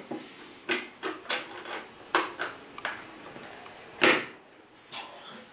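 Plastic building bricks clicking and knocking as roof pieces are handled and pressed onto a toy fire truck model, a scattered series of short clicks with a louder knock about four seconds in.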